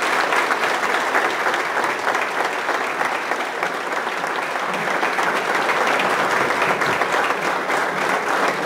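An audience applauding, a long steady round of clapping that begins at the close of an acceptance speech.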